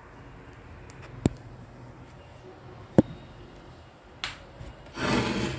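Two sharp knocks on a plywood cabinet door about two seconds apart, then a brief scuff and a half-second rubbing noise near the end, as the wood is handled.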